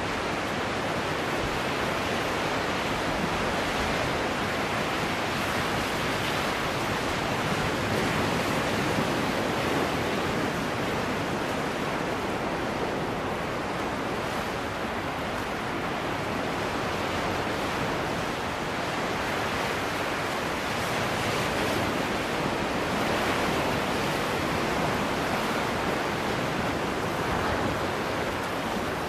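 Sea waves washing against shoreline rocks: a continuous surf wash that swells and eases slowly in loudness.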